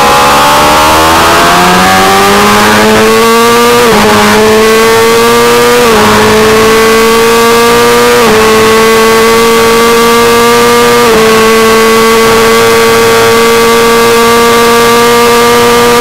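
600 cc race motorcycle engine at full throttle out of a corner and down the straight, rising in pitch and upshifting four times, each shift a quick drop in pitch, then holding high revs near the end. Wind noise on the onboard microphone.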